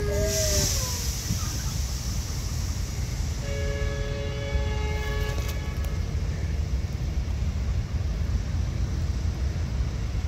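A CBH grain train's diesel locomotives rumble low and steadily as the train moves slowly. About three and a half seconds in, a multi-note locomotive horn sounds for about two seconds.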